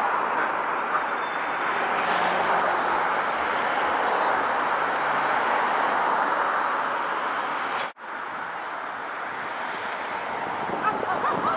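Steady rolling noise of a green Perley Thomas streetcar moving away along its rails, mixed with road traffic. The sound cuts out sharply for an instant about eight seconds in, then continues a little quieter.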